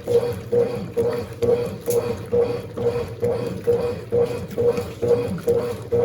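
Mondial Baby BLK20 small washing machine agitating a load of dark clothes in water, its motor humming and the agitator swishing back and forth in an even rhythm of about two strokes a second.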